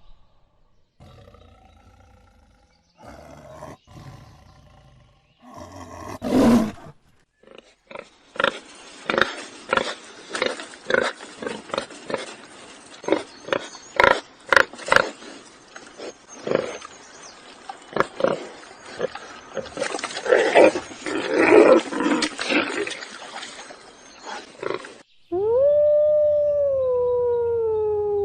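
A run of different animal calls: a loud call about six seconds in, then a long stretch of many short, rapid calls, and near the end a loud, long howl that falls in pitch.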